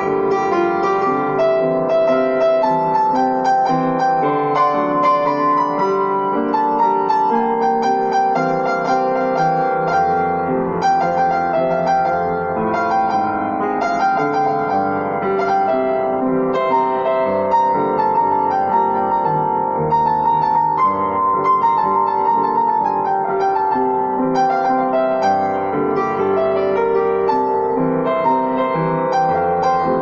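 Grand piano played solo: a continuous flow of chords under a melody line.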